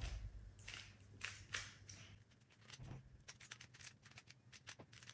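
QiYi magnetic mirror cube being turned quickly in the hands during a solve: a run of faint, irregular plastic clicks as the layers turn, coming quicker after a few seconds.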